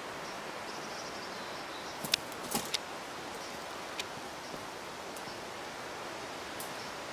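A few sharp snaps and cracks of twigs and dead branches under a bull elk's hooves as it walks off through downed timber: a cluster about two seconds in and one more about four seconds in, over a steady hiss.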